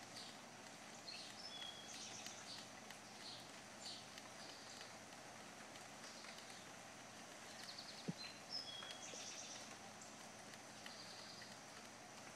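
Faint, scattered bird chirps in woodland over a steady background hiss, with a single soft knock about eight seconds in.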